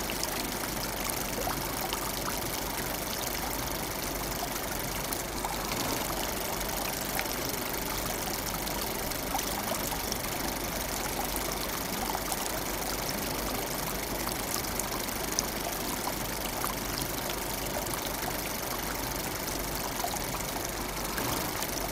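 A thin stream of water pouring steadily from a small pipe into a shallow pool of water, with the small motor-driven pump that feeds it running.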